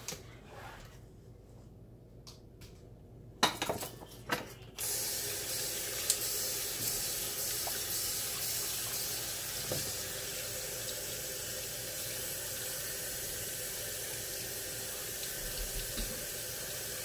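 A few knocks, then about five seconds in a kitchen faucet is turned on and runs steadily, pouring onto a plastic zip-top bag of ice in the sink and spilling over it.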